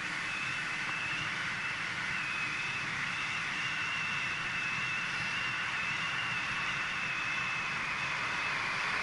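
Steady rushing noise of wind and tyres from a bicycle ridden at about 22–24 mph, picked up by a bike-mounted action camera, with a thin steady whine running through it.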